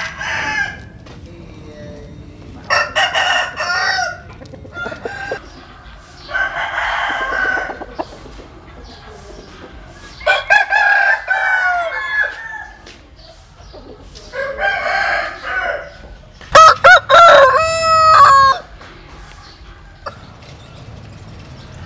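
Roosters crowing, about six crows a few seconds apart, the loudest and longest near the end.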